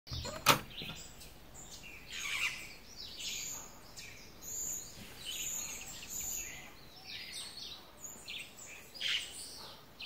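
A single sharp click of a door latch as the knob is turned, then birds calling and chirping, with a high-pitched call about once a second.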